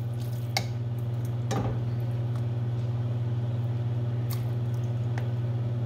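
Tongs and a ladle clinking a few times against stainless steel pots while creamy sauce and pasta are mixed, over a steady low hum.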